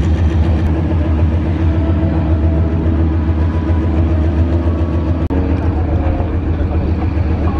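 Steady, loud low mechanical drone with a stacked hum, from a diesel ground power unit running beside a parked Sukhoi Su-27 before engine start, with a brief break about five seconds in.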